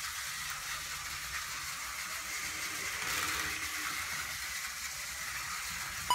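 Several battery-powered Plarail toy trains running on plastic track: a steady whirring of their small motors. A chime starts right at the very end.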